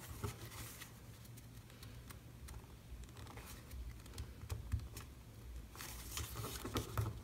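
Paper and cardstock handled and pressed down by hand on a craft mat: soft rustling with light taps and scrapes, busier near the end.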